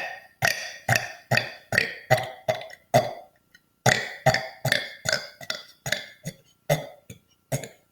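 A person burping on command in a fast run of short burps, about two to three a second. Each burp starts sharply and fades quickly, with a short pause a little after three seconds in.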